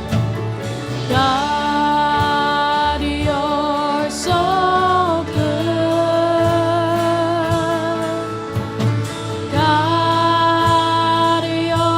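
Slow Christian worship song played by a band: a voice holds long notes with vibrato over sustained bass and light cymbal ticks. One phrase ends about four seconds in and a new one starts near ten seconds in.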